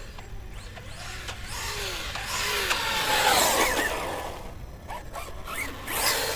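Pro-Line Pro-MT 4x4 1/10 scale electric RC monster truck running at speed: a rising and falling electric motor whine over the rush of its tyres. It is loudest about three seconds in and swells again near the end.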